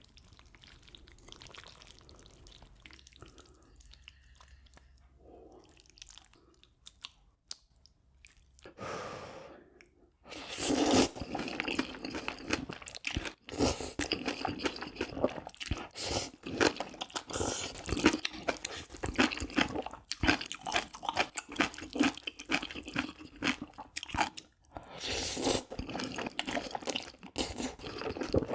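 Close-miked eating: chewing and crunching of food, faint at first, then loud and continuous with many wet clicks from about ten seconds in.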